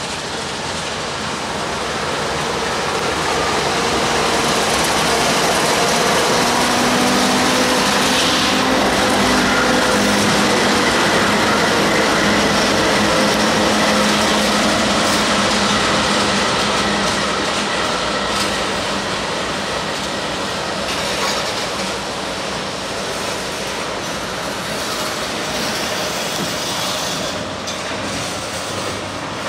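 Two GE diesel-electric freight locomotives, an ES44AH and an AC44CW, passing close by with their engines running. The sound swells to its loudest with a steady hum and whine through the middle, then eases into the rolling noise of the freight cars' steel wheels on the rails.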